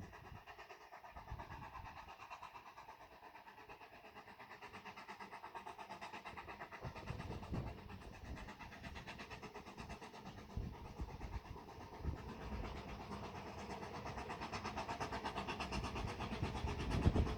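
Narrow-gauge Hunslet steam locomotive chugging in as it approaches, its fast, even exhaust beat growing steadily louder.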